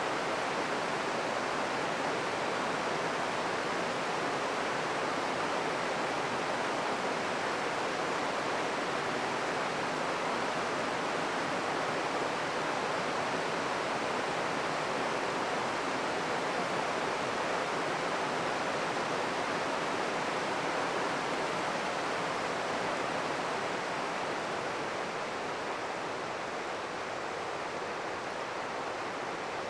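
Taughannock Creek rushing over low shale ledges and riffles: a steady, even rush of water that eases slightly in level near the end.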